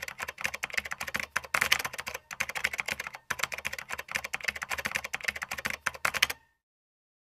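Computer-keyboard typing sound effect: a rapid, continuous patter of key clicks with a few brief pauses, stopping suddenly about six seconds in.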